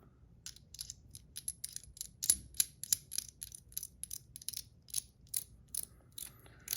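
A quick run of small, sharp metallic clicks, about three or four a second and a little uneven, as the stainless steel fidget tops are handled.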